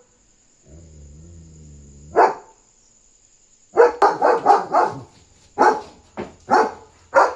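German Shepherd barking in alert at another dog outside. There is one bark about two seconds in, then a quick run of about five barks, then several more single barks. Before the first bark, a low steady pitched sound lasts about a second and a half.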